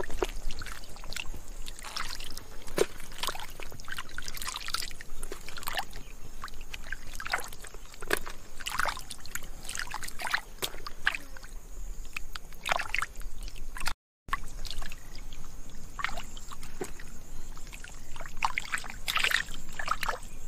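Muddy water splashing and sloshing in short, irregular bursts. The sound cuts out completely for a moment past the middle.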